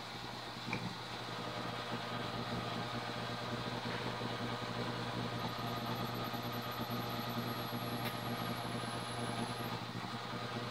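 Drill press motor running steadily while the bit is fed into a stainless steel steak knife, with a thin high whine around the middle. The bit is only making small divots in the steel, which the owner puts down to a dull bit or the hard stainless.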